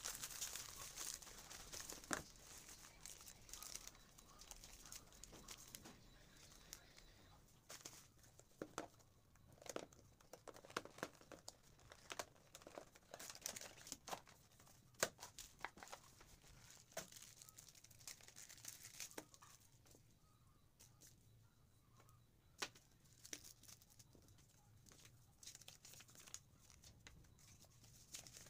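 Faint crinkling and rustling of a plastic courier mailer, cardboard box and paper packaging being handled and opened, with scattered small clicks and taps as items are set down.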